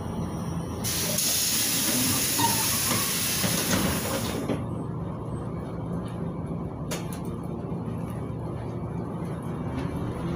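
Inside a LiAZ 5292.71 city bus, the MAN E0836 natural-gas engine and running gear give a steady low rumble. About a second in, a loud hiss of compressed air from the bus's air system lasts nearly four seconds and cuts off sharply. A single sharp click follows a few seconds later.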